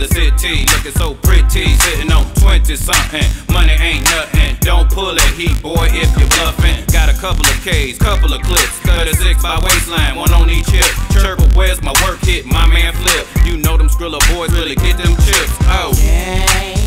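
Hip hop track: a heavy bass and drum beat with a rapped vocal over it.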